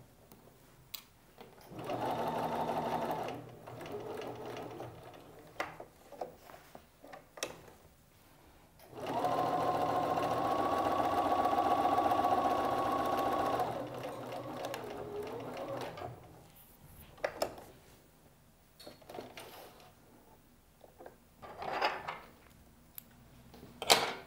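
Bernina sewing machine stitching a seam in short runs: a brief run about two seconds in, then a longer steady run of about five seconds in the middle, with scattered clicks between.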